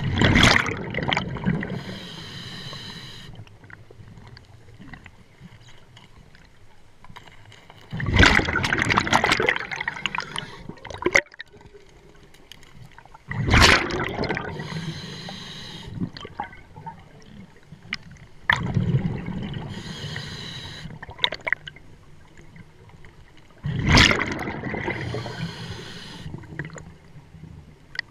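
A scuba diver breathing through a regulator underwater: a rush of exhaled bubbles about every five to six seconds, five breaths in all, with the softer hiss of the regulator between them.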